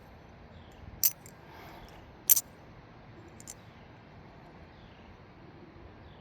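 Morph Turbid V2 titanium-channel balisong being flipped, its handles clicking sharply: two loud metallic clicks about a second apart, then a fainter one.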